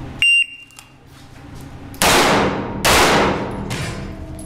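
Electronic shot-timer start beep, a short high tone, then two pistol shots just under a second apart about two seconds in, each ringing on in the reverberant concrete range hall.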